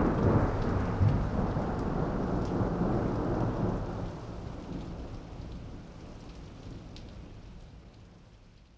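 Thunderclap with a long rumble over the hiss of steady rain, a second crack about a second in, then slowly fading out.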